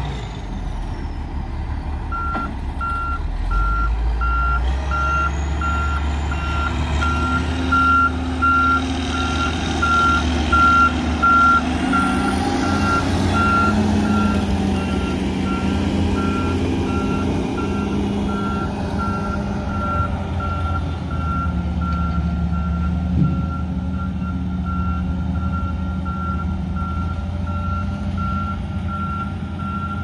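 Galion motor grader's diesel engine running under load, with a reversing alarm beeping at an even rate from about two seconds in.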